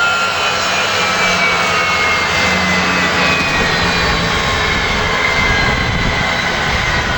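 Cessna Citation Excel's Pratt & Whitney Canada PW545 turbofans running with a steady rush and a high whine that slowly falls in pitch.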